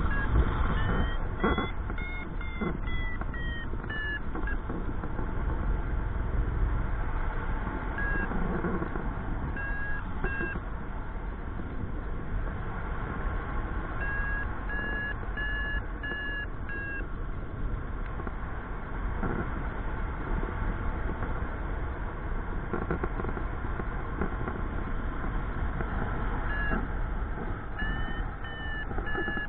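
Paragliding variometer beeping in runs of short, evenly spaced beeps whose pitch steps up and then down, the tone that signals the glider is climbing in lift; the beeps come in several groups, the highest pitch about two seconds in. Steady wind rush on the microphone runs beneath them.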